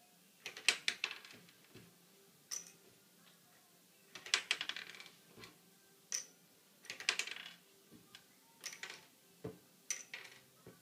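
Small plastic Lego pieces clicking and rattling as they are handled and pressed together, in short clusters of sharp clicks every second or two.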